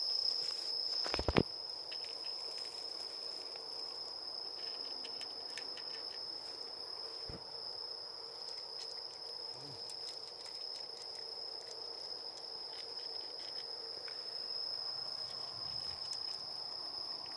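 Night insects trilling in one steady high-pitched tone, with a single sharp knock about a second in and faint small ticks scattered through.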